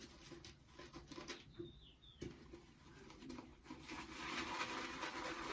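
Faint swishing of a 28 mm synthetic shaving brush being worked in shaving soap to build lather, growing louder about four seconds in, with a few faint bird calls in the background.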